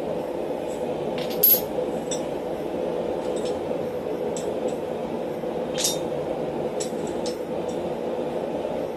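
Steel die blocks of a blacksmith's guillotine tool being handled and swapped, clinking against the steel tool body several times. The loudest clink comes about one and a half seconds in. A steady mechanical hum runs underneath throughout.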